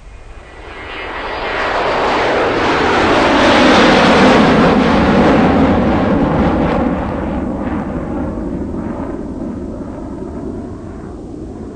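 JCB 3DX backhoe loader's diesel engine working under load as the bucket of soil is lifted, swung and dumped into a tractor trolley. The sound swells to a loud peak about four seconds in and then slowly eases off.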